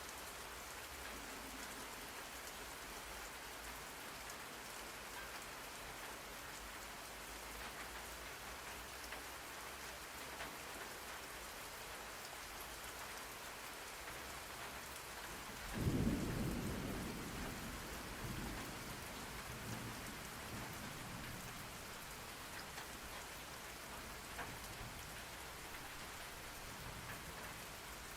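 Steady rain recording with a single thunderclap about halfway through, which rumbles and fades away over several seconds.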